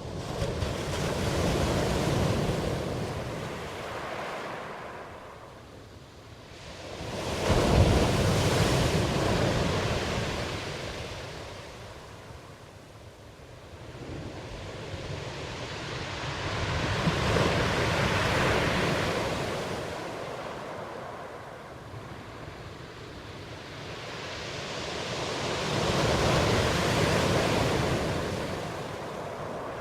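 Ocean surf: waves breaking and washing in, the sound swelling and fading about every eight to ten seconds, four times. The loudest wave breaks suddenly about eight seconds in.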